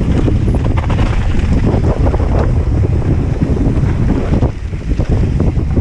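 Heavy wind buffeting the action camera's microphone during a fast mountain-bike descent, over a constant low rumble, with the tyres and bike clattering and rattling over the rough trail.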